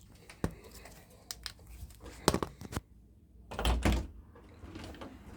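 A string of sharp clicks and knocks, then a heavier, low thump about three and a half seconds in.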